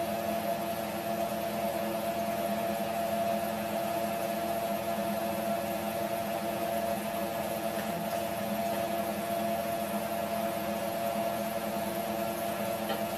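Steady whirring hum with an even hiss over it, unchanging throughout: kitchen machine and stove noise while a pot boils on a gas hob.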